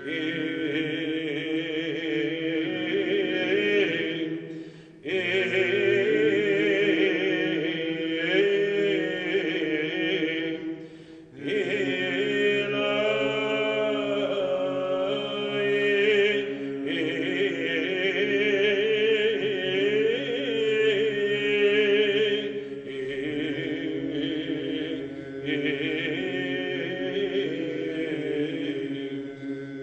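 Byzantine chant sung by male chanters: a slow, ornamented melody over a steady held drone (the ison). The singing breaks off briefly about 5 seconds and 11 seconds in, then carries on.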